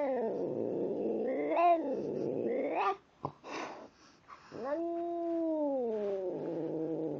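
A cat yowling while eating dry kibble from his bowl: two long drawn-out calls, the first wavering up and down in pitch for about three seconds, the second starting past the middle and sliding down in pitch, with a short break between them.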